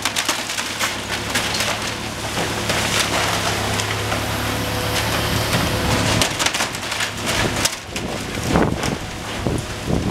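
High-reach demolition excavator tearing into a brick-and-timber building: timber splintering and cracking, with repeated knocks of falling debris over the machine's steady engine hum. The cracks come thickest in the last few seconds.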